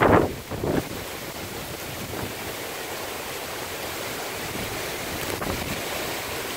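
Hurricane wind howling with heavy rain, a steady rushing hiss, with a few louder gusts buffeting the microphone in the first second.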